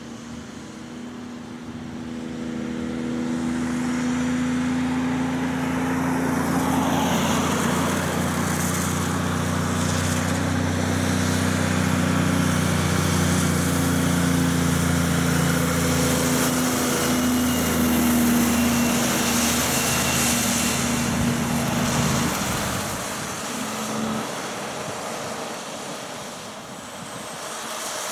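Heavy truck's diesel engine running past with a steady note, over the hiss of tyres on a wet road. It builds over the first few seconds and fades away in the last few seconds.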